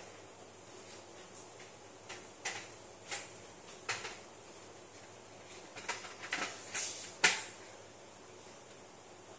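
A string of irregular sharp clicks and knocks, like small objects and wire connectors being handled on a hard countertop, with the loudest knock about seven seconds in.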